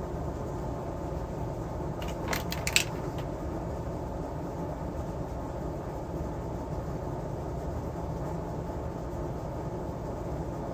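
A steady low background rumble, with a few light clicks and small knocks about two seconds in.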